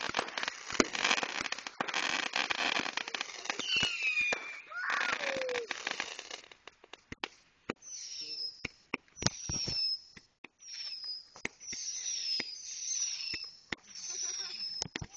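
Fireworks going off. For the first half there is dense crackling with many sharp pops, and some tones gliding down. Then come separate sharp pops, each followed by a short high whistle that falls in pitch, about once a second.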